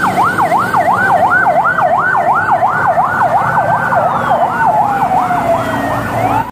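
Military ambulance siren in a fast yelp, its pitch sweeping up and down about three times a second, over the low hum of street traffic. A second, slower falling siren tone crosses it about four seconds in.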